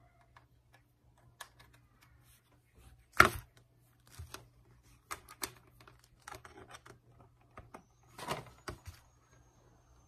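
Hands handling a power bank and its plastic wrapping: scattered crinkling and light clicks, with a sharp knock about three seconds in and another burst of handling about eight seconds in.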